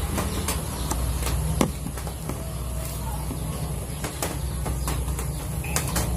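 Light clicks and rustles of hands working nylon fishing line close to the microphone, over a steady low background rumble.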